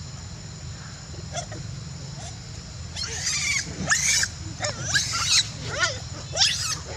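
Macaques screeching: a run of high squealing calls that bend up and down in pitch, starting about three seconds in and coming roughly every half second to second.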